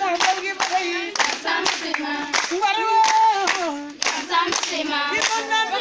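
Children's group singing a song together while hand claps keep a steady beat, about two claps a second.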